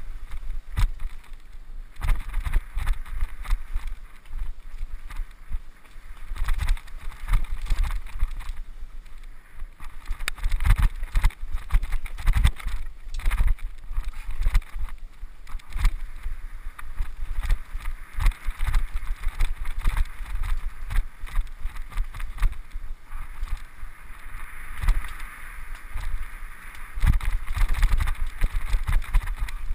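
Mountain bike ridden fast down a bumpy dirt singletrack: wind buffets the microphone with a low rumble, over constant rattling and knocks from the bike on the rough trail.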